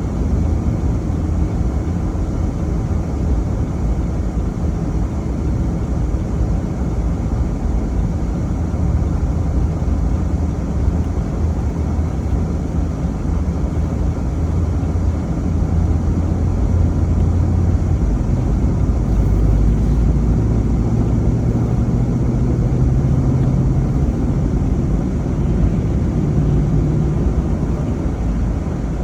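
A car on the move: steady low engine hum and road rumble, the engine note shifting up and down a little as the speed changes.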